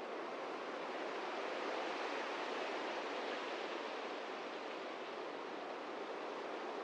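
Steady, even hiss of noise, like static or distant surf, with no speech.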